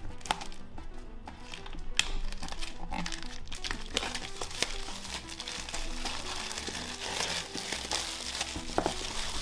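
Clear plastic shrink wrap being torn and peeled off a small cardboard game box, crinkling, with a few sharp snaps and the crinkling busiest in the second half. Background music plays under it.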